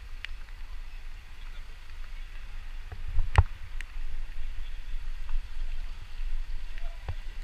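Vehicle driving slowly on a wet street: a steady low rumble with faint tyre hiss. A sharp knock about three and a half seconds in is the loudest sound, with a few fainter clicks around it.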